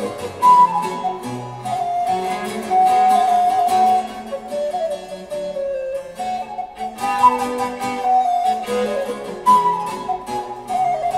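Instrumental music playing: a held melody line over plucked-string accompaniment, from a hi-fi demonstration recording.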